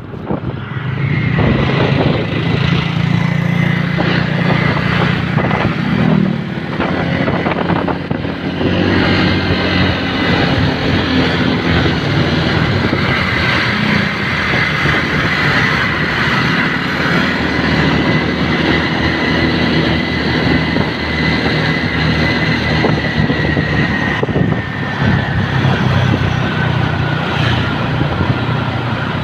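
Motorcycle engine running while riding along a road, the engine note shifting now and then, with road and wind noise. A steady high whine runs alongside and dips slightly in pitch about 24 seconds in.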